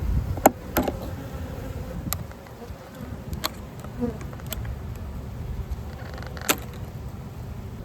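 Honeybees buzzing in the air around hives just opened after a move, confused and agitated. About six sharp clicks or knocks are heard through it, the loudest about half a second in and near the end.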